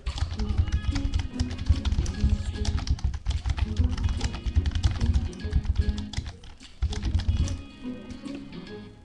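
Background music playing, with rapid computer-keyboard typing over it. The music's bass drops out near the end.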